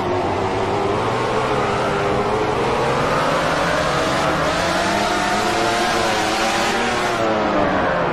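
MotoGP racing motorcycle engine running at high revs, its pitch climbing through the middle and dropping near the end as the bike accelerates and then slows.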